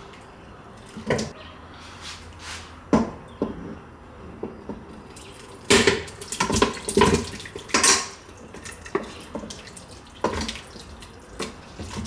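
Pork trotter stew being spooned out of a wok into a pressure cooker's inner pot: a wooden spoon knocking and scraping against the wok, with wet plops of sauce-coated meat and vegetables dropping into the pot. The knocks come irregularly and are busiest from about six to eight seconds in.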